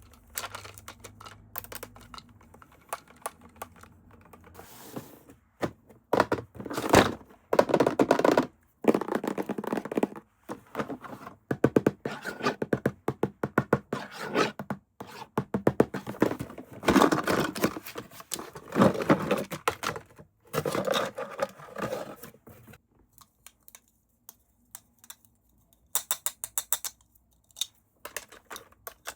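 Hands unboxing and handling toys and their packaging: a busy run of clicks, scrapes, thunks and tearing from about six seconds in until about twenty-two seconds, then only scattered taps and a brief crinkle near the end.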